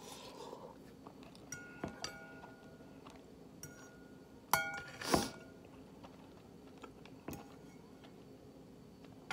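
Metal fork clinking and scraping against a ceramic bowl, with the strongest clinks about two and four and a half seconds in, each ringing briefly, between quieter chewing. A short hissing noise comes just after the second big clink and is the loudest sound.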